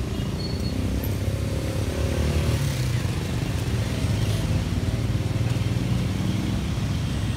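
Motorcycle engine running with a low, steady rumble that gets a little louder about two seconds in.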